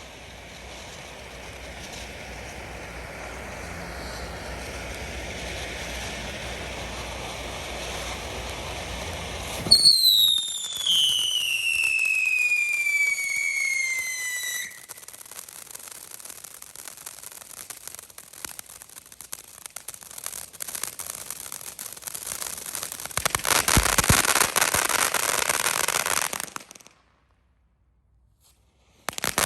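A 500g Hollering Hippos fountain firework by Smoking Alien spraying sparks, its hiss building gradually. About ten seconds in a loud screaming whistle sets off and falls steadily in pitch for about five seconds, followed by further spraying and crackling that grows louder near the end. The sound then cuts off suddenly for about two seconds before resuming.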